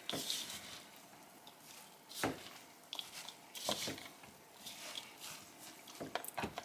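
A few scattered light taps and clicks of kitchen utensils and a bowl, with soft squishing as a chopped-vegetable mash is handled.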